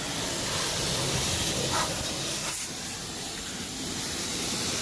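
Self-serve car wash pressure wand spraying a jet of water onto a car's engine bay around the radiator. A steady hiss of spray that dips briefly a little past halfway.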